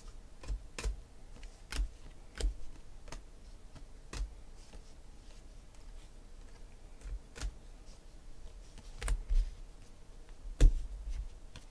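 Glossy trading cards being flipped through and shuffled by hand, clicking and snapping against each other in irregular light clicks, with a louder tap near the end.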